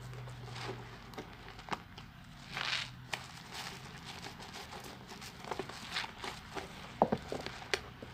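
A wet bar of children's soap being lathered: scattered soft clicks, squelches and crackling foam, with a brief swish about two and a half seconds in and a quick run of sharper clicks near the end.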